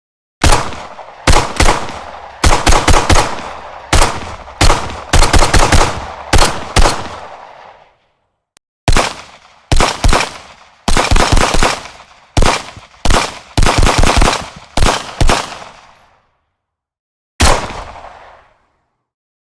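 Glock 17 pistol gunshots fired as single shots and quick strings of several shots, each crack followed by a decaying echo tail. A lone shot comes near the end after a pause.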